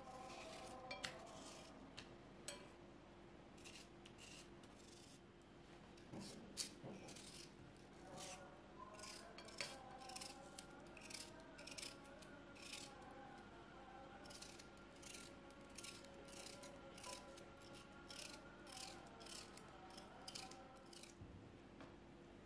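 Small kitchen knife cutting watermelon rind into cubes: a run of short, crisp cuts, about two a second, over faint background music.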